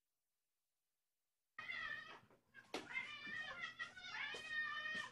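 Silence, then about one and a half seconds in a cat starts meowing: several long meows that bend in pitch, one after another with short breaks.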